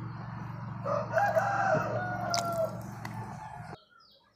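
A rooster crowing once, a single long call of about two seconds. A steady low hum runs underneath and cuts off suddenly near the end.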